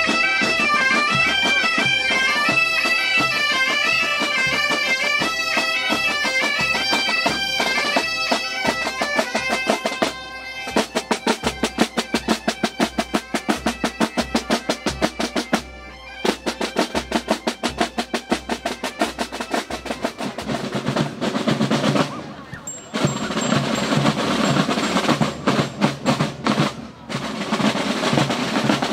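Galician bagpipes (gaitas) playing a tune over their drone, with marching drums beneath. About ten seconds in the pipes stop and the drums carry on alone in a steady marching beat. Near the end a second marching band's drum section with many snare drums takes over.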